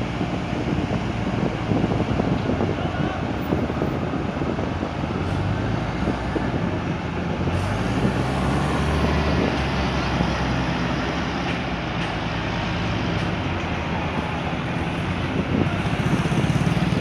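Fire truck engine running amid steady road traffic noise.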